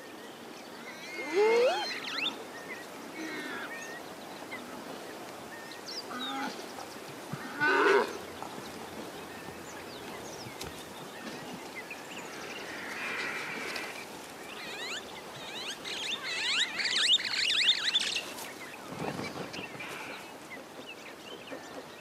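Wild animal cries: scattered wavering, pitched calls, growing into a run of many overlapping high cries in the last third.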